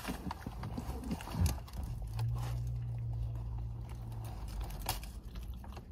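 Quiet handling noises, small clicks and rustles of food and wrappers, inside a car cabin over a low steady rumble, with a flat low hum lasting about two seconds in the middle.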